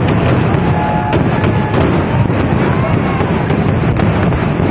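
Daytime festival fireworks (vedikettu) going off in a continuous barrage: sharp bangs about three or four a second over a dense, unbroken rumble of explosions.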